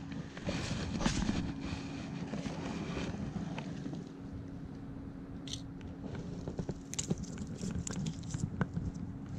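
Dry fallen leaves crunching and rustling underfoot in scattered bursts, busiest at the start and again in the second half, over a steady low hum.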